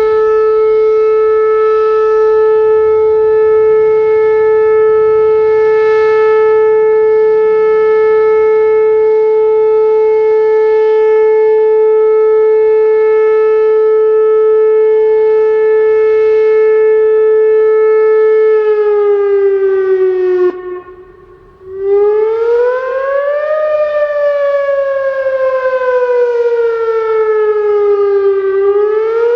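Whelen WPS 2810 electronic outdoor warning siren sounding a steady tone for about eighteen seconds, then dipping in pitch and cutting out briefly before switching to a rising and falling wail. This is a routine test of the outdoor emergency warning system.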